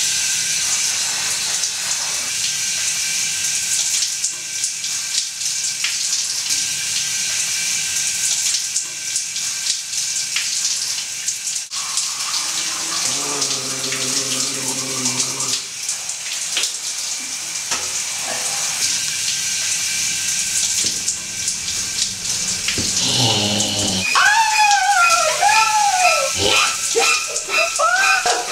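Shower spray running steadily in a tiled shower stall. About halfway through, a man sings one long low note. Near the end, shrill sounds start that swoop up and down again and again.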